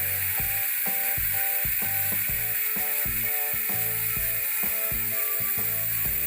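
Weapon Savage bicycle hub freewheeling, its pawls clicking so fast they merge into a loud, steady ratcheting buzz.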